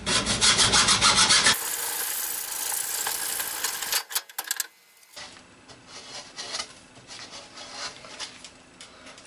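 Hacksaw sawing through a PVC pipe with quick back-and-forth strokes, stopping about four seconds in; after that only faint clicks of handling.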